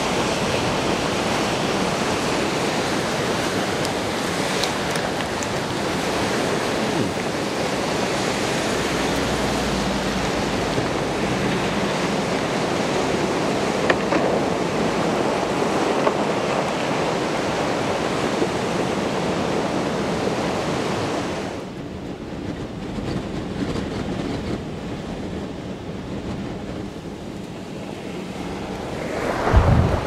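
Storm-surge waves from Lake Erie breaking over the shoreline and washing across pavement, a continuous rush of surf mixed with strong wind. About two-thirds of the way through, the sound drops to a quieter, duller rush. Near the end, gusts buffet the microphone with low bumps.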